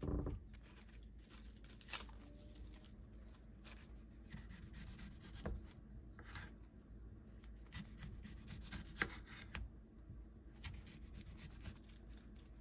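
Soft food-preparation sounds: crisp lettuce leaves rustling and crinkling, and a small knife cutting through a tomato against a wooden cutting board. Scattered light knocks and ticks, the loudest right at the start.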